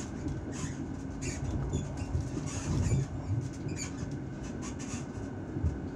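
Moving train heard from on board: a steady low rumble of running gear, with frequent short clicks and rattles from the wheels and fittings.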